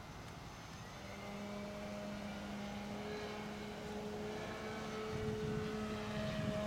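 Engine of a large radio-controlled aerobatic model plane droning in flight. It holds a nearly steady pitch that wavers slightly and grows gradually louder toward the end.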